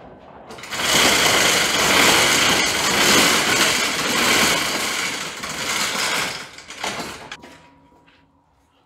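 A shop's overhead door rattling open for about six seconds, then dying away.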